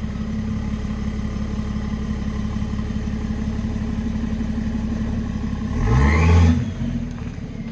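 Diesel BMW X5 E70's straight-six engine idling steadily, then blipped once about six seconds in: the engine note rises and falls back to idle within a second, with the turbo whistle climbing and dying away with it.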